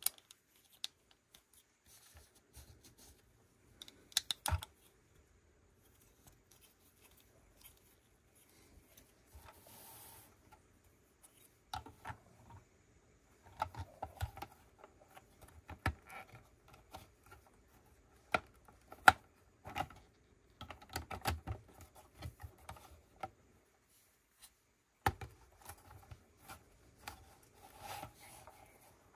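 Lego pieces being handled and pressed together: irregular small plastic clicks and rattles, with a brief rustle about ten seconds in.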